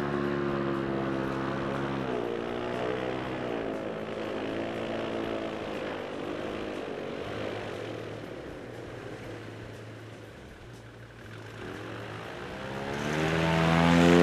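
Airboat's engine and caged propeller running at speed across open water. Its pitch sweeps up and down a few times; it fades somewhat past the middle, then grows loud near the end as the boat comes close.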